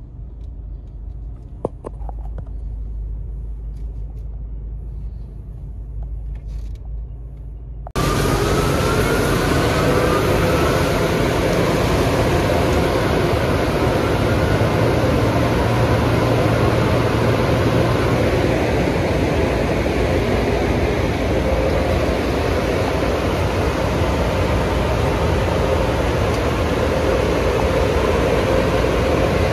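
First a low, muffled rumble inside the car. About eight seconds in, the sound cuts abruptly to the much louder, steady rushing hiss and hum of an automatic car wash tunnel's equipment running.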